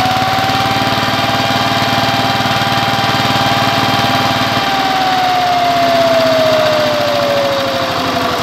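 Single-cylinder diesel engine of a VST power tiller running at raised throttle with a steady whine. About halfway through, the engine eases off and the whine falls in pitch as the engine slows.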